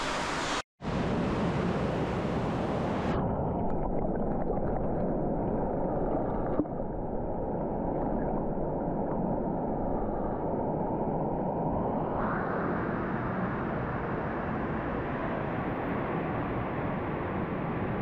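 Steady rush of a fast mountain trout stream, heard close up. It cuts out for an instant under a second in, and through the middle stretch it turns muffled, its hiss gone.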